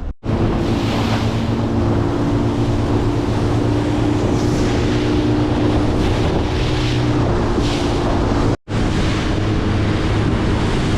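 Boat motor running under way, a steady low hum beneath heavy wind buffeting on the microphone and water rushing past the hull. The sound drops out abruptly for an instant twice, just after the start and about eight and a half seconds in.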